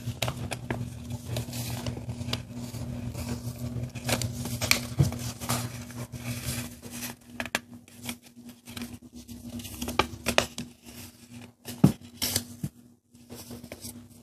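A sheet of paper being folded by hand: irregular crisp rustles, crinkles and scrapes as fingers press, crease and slide along the folds.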